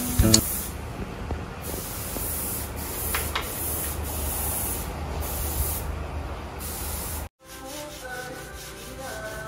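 Compressed-air paint spray gun hissing in repeated bursts of one to two seconds over a low rumble. It cuts off suddenly about seven seconds in, and faint music follows.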